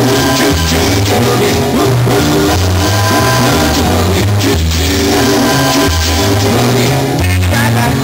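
Rock song playing, with a singer over a steady, repeating beat.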